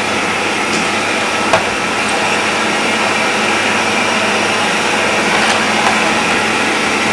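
Vacuum cleaner running steadily, with a few light clicks as it knocks against things.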